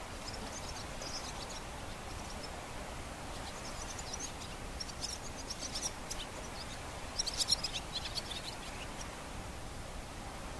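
Steady gentle wash of small waves on a calm sea, with small birds chirping in short clusters over it; the loudest cluster comes about seven seconds in.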